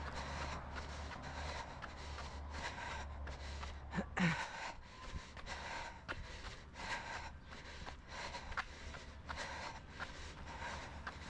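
A jogger's hard breathing and footfalls on a concrete sidewalk, about three steps a second, with a sharp gasp about four seconds in. A passing car's low rumble fades out at about the same time.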